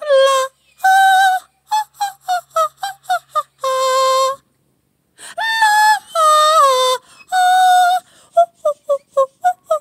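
A person singing a high wordless tune, long held notes alternating with runs of quick short notes, to coax a Dogo Argentino into singing along.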